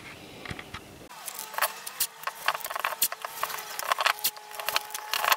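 Blue painter's tape being pulled off the roll, torn and pressed down by hand: a busy run of irregular crackles and rips.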